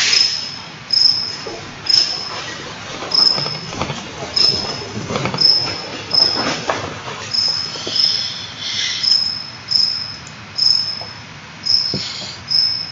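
A cricket chirping: short, high chirps about once a second, with faint rustling in between.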